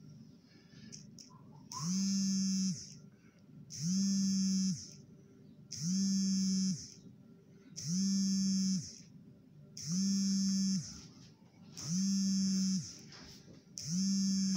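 Mobile phone vibrating with an incoming call: a buzz about a second long, repeating every two seconds, seven times from about two seconds in.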